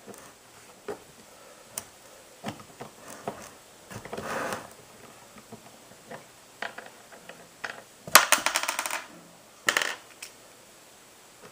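Small metallic clicks and clatters of a screwdriver and screws as the screws are taken out of a chainsaw's handguard, with a quick run of rattling clicks about eight seconds in and another short burst near the end.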